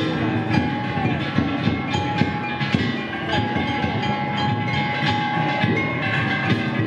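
A wooden danjiri festival float being hauled and turned on the road: its big wooden wheels rumble and creak over a dense crowd din, with frequent short knocks and a few brief squealing slides.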